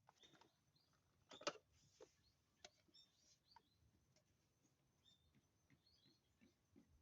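Faint ambient sound: small birds chirping now and then, with a few brief soft clicks, the loudest about a second and a half in.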